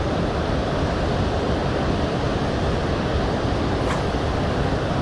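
Steady rushing roar of water pouring through a dam's open spillway gates into the river below, with a single faint click about four seconds in.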